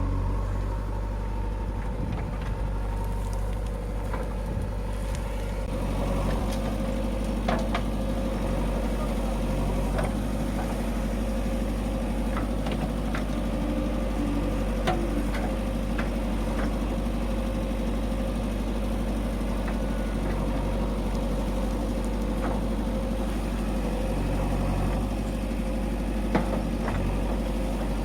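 Heavy diesel engine of a working backhoe loader and tractor running steadily, the note growing fuller about six seconds in, with scattered short knocks and clanks.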